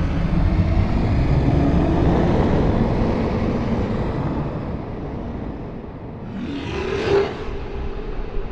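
Horror sound effect: a deep rumbling drone that swells in and slowly fades, then a short rushing swell that peaks about seven seconds in.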